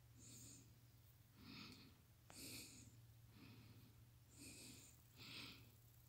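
Faint breathing close to the microphone, a soft puff of breath about once a second, with a small click a little over two seconds in.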